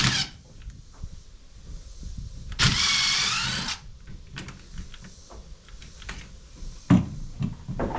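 Cordless drill run once for about a second, its whine wavering in pitch, with a sharp knock at the start and another near the end.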